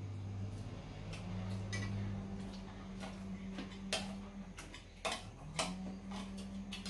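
Metal chopsticks and spoons clicking and scraping irregularly against stainless-steel bowls and a serving tray while eating, with a steady low hum underneath.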